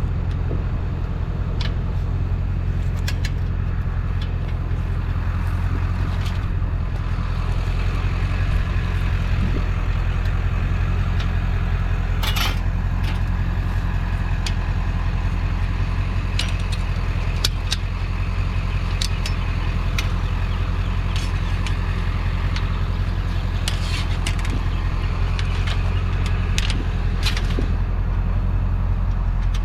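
A vehicle engine idling steadily, with scattered sharp metallic clanks and clicks.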